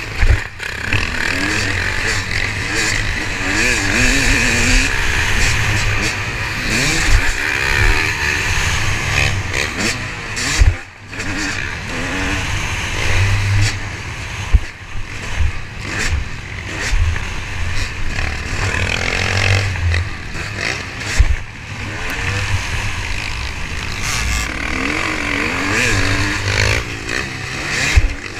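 Motocross bike's engine heard from onboard during a race, revving up and down again and again through the gears as the throttle is worked, with a short lift off the throttle about eleven seconds in. Occasional sharp knocks cut through the engine noise.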